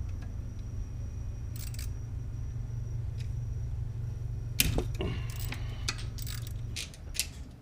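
Metal hand tools and bolts clinking as the old motorcycle regulator/rectifier is unbolted from its mounting bracket: a few light clicks, then a run of clattering about two-thirds of the way in. A steady low hum underneath stops just before the end.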